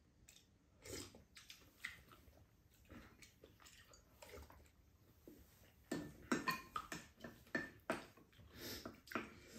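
Quiet table-eating sounds from two people: chewing, and spoons tapping and scraping against ceramic bowls and a pot, with a denser run of clicks and scrapes from about six seconds in.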